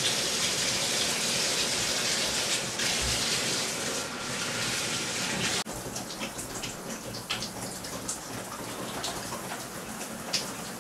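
Shower running behind a closed curtain: a steady hiss of falling water that drops abruptly about halfway through to a quieter rush with scattered splashes.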